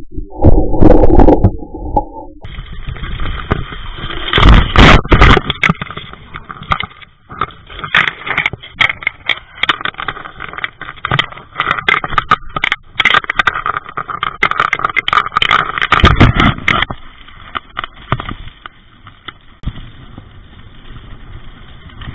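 Mountain bike rattling and clattering down a rough gravel trail, heard through a bike-mounted action camera: tyre noise and wind with dense, irregular knocks as the bike hits stones and bumps. The first two seconds are muffled heavy thumps; after that the clatter is sharper and busier, easing somewhat near the end.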